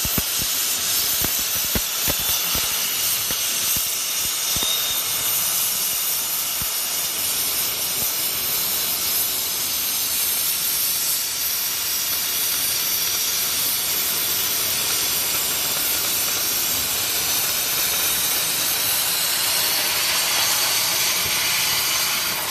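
CNC oxy-fuel cutting torch hissing steadily as its jet cuts through thick steel plate, with sharp crackling pops from sparks and slag in the first two or three seconds.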